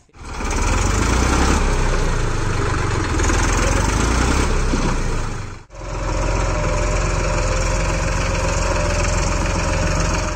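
Deutz-Fahr Agromax 4045E tractor's Simpson diesel engine running as the tractor ploughs, in two clips joined a little past halfway.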